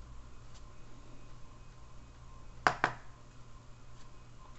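Two sharp clicks in quick succession about halfway through, from a large military knife and its sheath being handled, over faint room noise.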